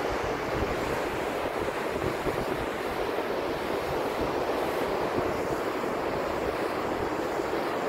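Steady wash of ocean surf with wind buffeting the microphone, an even noise with a low, uneven rumble beneath it.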